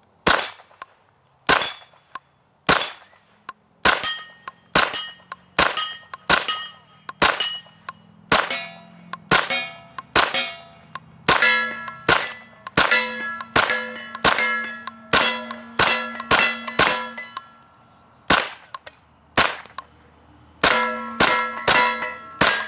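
Suppressed 9mm Stribog SP9A3G roller-delayed pistol firing Remington 147-grain subsonic rounds through a Witt Machine suppressor, a fairly quick string of shots at about two a second. Hit steel plates ring after many of the shots, and there is a short break in the firing near the end.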